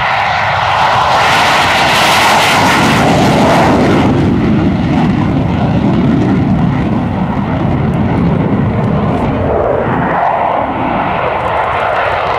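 Jet fighter taking off: a Blue Angels F/A-18 Hornet's twin jet engines at takeoff power as it lifts off and climbs away, loud and continuous. The noise eases about ten seconds in, and a second jet, a Thunderbirds F-16, is coming through near the end.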